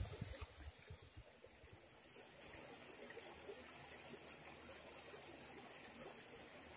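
Faint, steady rush of a shallow rocky river flowing, with a few low muffled thumps in the first second.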